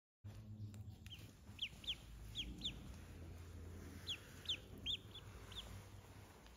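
Duckling peeping: about ten short, high peeps, mostly in pairs, starting about a second in, over a faint low hum.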